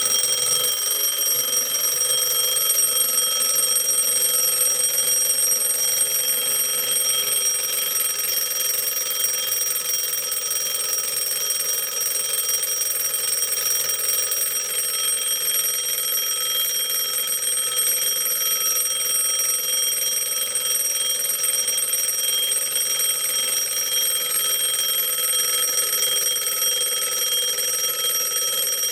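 Antique German Pfeilkreuz mechanical alarm clock ringing its alarm bell: a loud, steady, unbroken ring with several fixed bell tones.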